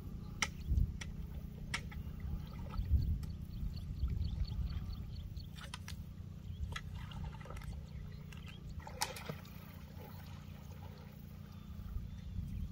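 Faint water splashing and trickling with scattered small clicks over a steady low rumble.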